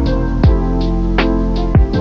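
Background music with a steady beat over sustained held tones.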